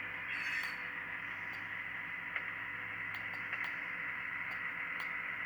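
Model train running on the layout, heard through a Soundtraxx SoundCar caboose decoder's small speaker: a steady hiss-like rolling sound with scattered clicks. A brief high-pitched sound comes about half a second in, and a low hum stops a little over halfway through.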